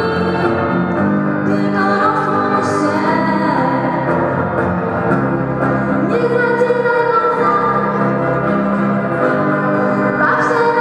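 A girl singing into a microphone with a live band of electric guitars and keyboard.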